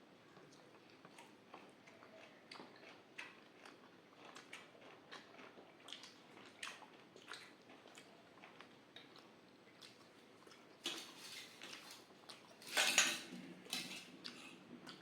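Close-miked chewing and wet mouth sounds of someone eating rice with shukto, a Bengali vegetable curry, with many small clicks. Two louder bursts of noise come near the end, the second the loudest.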